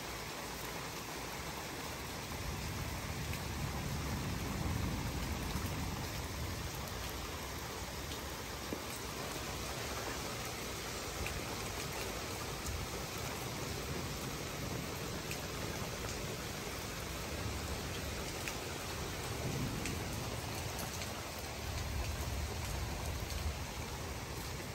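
Steady heavy rain pouring down, with scattered drop ticks. Low rumbles of distant thunder swell a few times, about four seconds in and again near the end.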